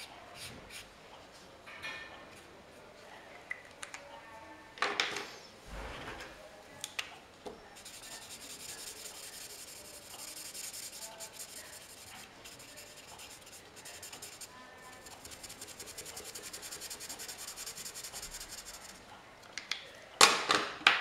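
Marker pen scratching on paper in fast back-and-forth strokes, colouring in, with a few loud knocks near the end.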